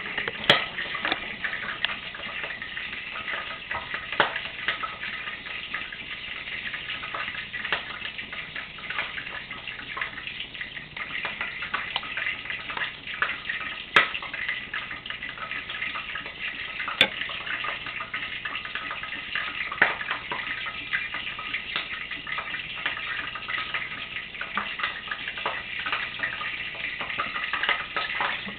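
Fish cakes frying in a pan of hot oil, a steady sizzle and crackle, with a few sharp clicks.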